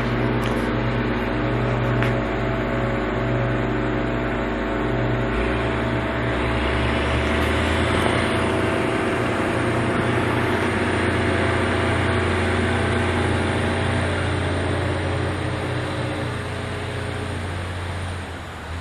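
Heavy diesel engine running steadily, its pitch stepping up about five and a half seconds in. A thin high whine rises in soon after and holds until near the end.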